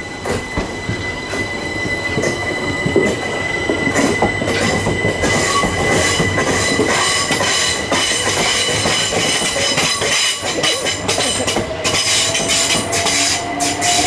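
Class 378 Electrostar electric multiple unit moving through the station, getting louder, with a steady high wheel squeal and a slowly rising motor whine. From about eleven seconds in, quick sharp clicks of the wheels over rail joints join in.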